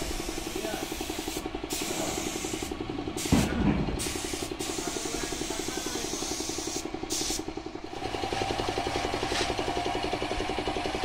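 Compressed-air spray gun hissing as primer is sprayed onto a truck body, the hiss cutting off briefly a few times as the trigger is released. Under it a steady, fast mechanical pulsing, with one thump about three seconds in.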